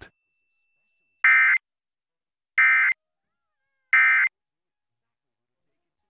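Emergency Alert System end-of-message (EOM) signal: three short, identical bursts of buzzy digital SAME data tones about a second and a half apart, marking the end of the test message.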